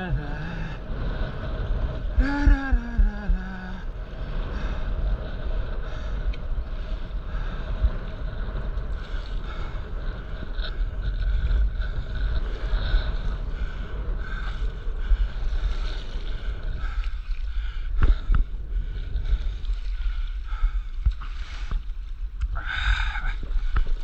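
Wind buffeting the microphone of a camera on a stand-up paddleboard as a constant low rumble, with water sloshing and splashing against the board on choppy sea; a louder splash near the end.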